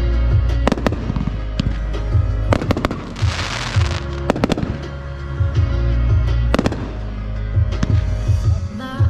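Consumer aerial fireworks going off in a hand-fired finale, a string of sharp bangs at uneven intervals, with a hissing rush about three seconds in. Background music with a heavy bass plays underneath.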